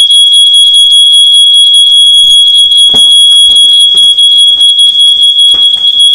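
Smoke alarm sounding a loud, continuous high-pitched tone, set off by smoke from an overheated frying pan and a burnt schnitzel.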